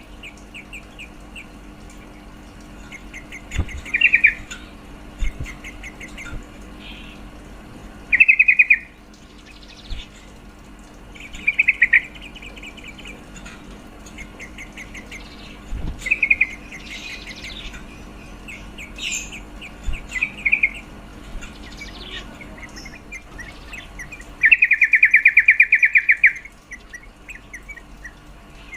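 Female yellow-vented bulbul (trucuk) giving chattering calls: bursts of rapid, evenly repeated notes, the longest and loudest near the end. This is the female's call to a male, used to rouse caged males into singing.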